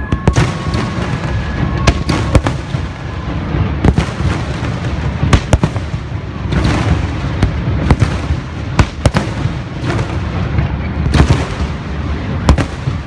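Fireworks display: many sharp bangs of bursting shells come at irregular intervals, a dozen or so loud ones, over a continuous rumbling, crackling din of smaller bursts.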